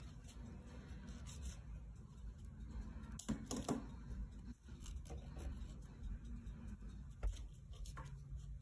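Quiet room tone with a low steady hum and a few faint clicks and rustles, a short cluster of them about three and a half seconds in.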